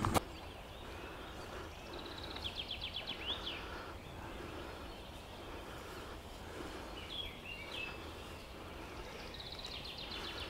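A songbird singing a short phrase of rapid high notes that ends in a quick flourish, twice, with a shorter call in between, over a low steady outdoor background noise. A short sharp knock right at the start.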